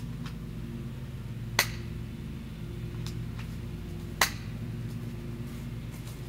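P169 spring-powered airsoft pistol fired twice, a sharp snap about a second and a half in and another about four seconds in, with fainter clicks between them. A steady low hum runs underneath.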